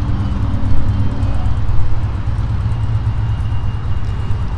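A 2002 Harley-Davidson Fat Boy's 88-cubic-inch carbureted Twin Cam V-twin idling steadily through Screaming Eagle slip-on mufflers, with one sharp click right at the end.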